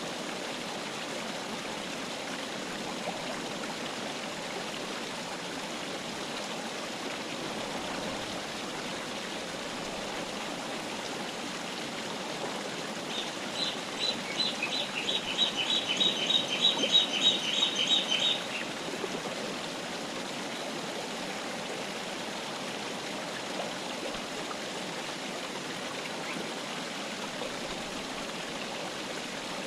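Mountain river flowing steadily. About halfway through, a bird sings a quick series of repeated high notes for about five seconds, growing louder before it stops.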